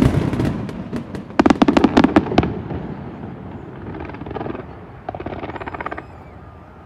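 Fireworks going off: a sudden volley of loud bangs at the start and another dense cluster about a second and a half in, then fainter rapid crackling around four and five seconds in.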